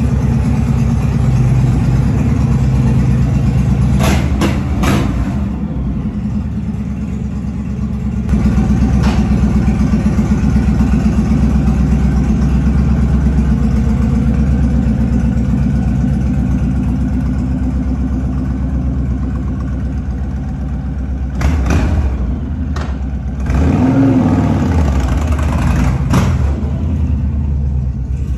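Honda Fury V-twin motorcycle running through an aftermarket Cobra exhaust: it idles steadily with a few short throttle blips, then revs up as it pulls away.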